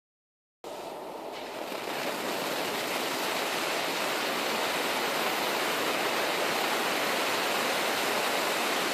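Bengalo Fatalo No. 2 pyrotechnic flare burning with a steady hiss. The hiss cuts in abruptly about half a second in, after a moment of silence, and grows a little louder over the next second or two.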